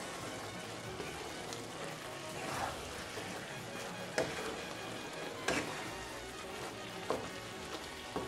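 Wooden spatula stirring a thick chicken curry in a wok as it sizzles over the heat, with about four sharp knocks of the spatula against the wok in the second half.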